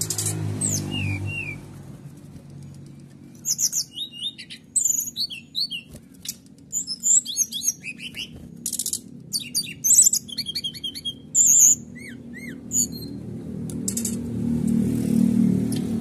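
Brown-chested jungle flycatcher (sikatan rimba dada coklat) singing in quick, varied bursts of high, sharp whistles and trills, delivering canary-style phrases ('nembak kenari'). The bursts come thickest through the middle, over a low background hum.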